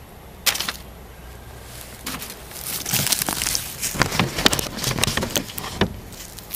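Sheet of paper rustling and crinkling close to the microphone as it is picked up and fastened, mixed with irregular handling knocks. A single sharp click comes about half a second in, and the rustling grows busier from about two seconds in.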